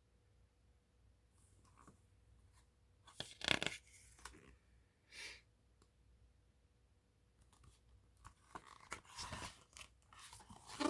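Paper rustling as picture-book pages are handled and turned: one short spell about three seconds in, and a longer one from about eight seconds on.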